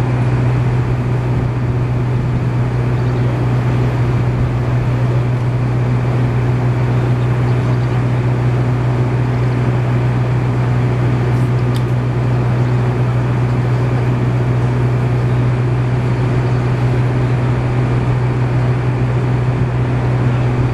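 An engine running at a constant speed: a loud, even drone with no change in pitch.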